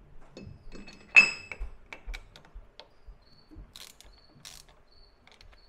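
Steel spindle adapter plate clanking onto a lathe's D-style cam-lock spindle nose about a second in, with a brief metallic ring. After it comes a series of light metallic clicks from a small hand ratchet turning the cam locks.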